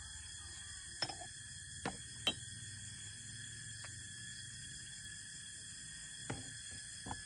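Small porcelain teaware clinking a handful of times as tea is poured from a pitcher into little cups, the loudest clink about two seconds in. Under it, a steady high chirring of night insects.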